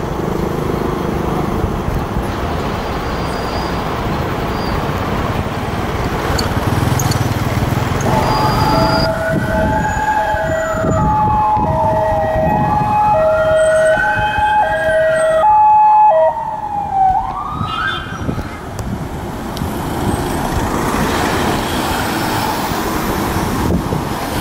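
Two emergency-vehicle sirens sound together for about ten seconds in the middle: a slow wail rising and falling, over a two-note hi-lo tone. They peak just before they cut out. Traffic and vehicle engines run before and after.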